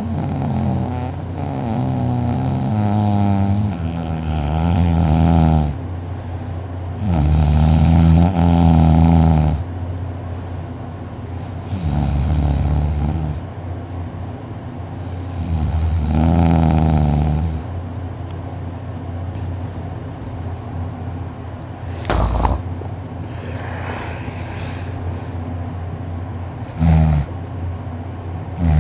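A sleeping man snoring heavily: four loud, low, droning snores spaced a few seconds apart, then softer breathing. A sharp knock comes about 22 seconds in, and a short snore comes near the end.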